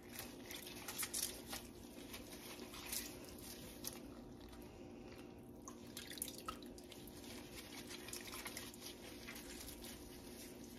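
Hot whey dripping and splashing in small irregular spatters as mozzarella curd is dipped into it and lifted out to be worked, over a steady low hum.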